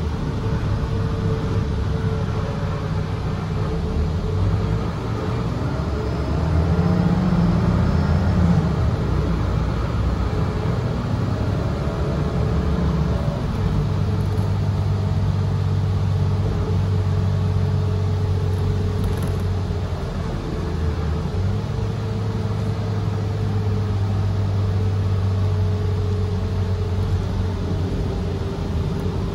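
Cabin sound of a 2017 Gillig Low Floor 40-ft transit bus under way: steady engine and drivetrain rumble with a low hum and road noise, briefly louder about seven seconds in.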